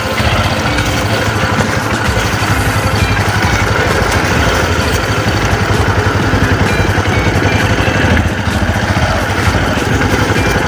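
Motorcycle engine running steadily at low speed, with a brief drop in loudness about eight seconds in.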